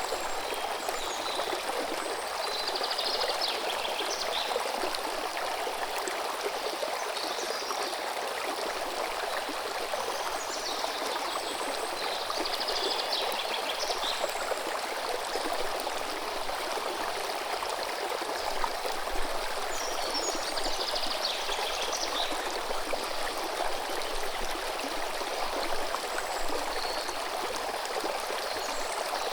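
River water running steadily with an even rushing sound, while a bird sings short phrases every few seconds over it.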